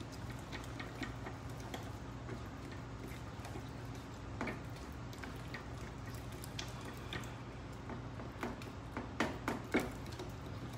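Wooden spoon stirring melting cheese sauce in a saucepan, with scattered light knocks and scrapes of the spoon against the pan, more of them near the end.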